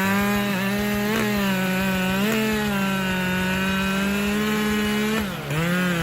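Chainsaw running at high speed while cutting through wood, with a steady high engine note that wavers slightly as the chain bites. About five seconds in, the note sags briefly and then picks up again.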